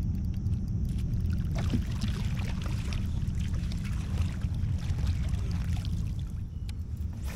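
Water splashing and washing around a kayak on a river, from about a second and a half in until about six seconds, over a steady low rumble.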